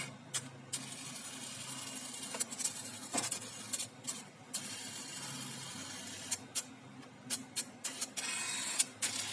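A small electric machine under repair running with a steady low hum, with scattered sharp clicks and short bursts of hiss as its mechanism works.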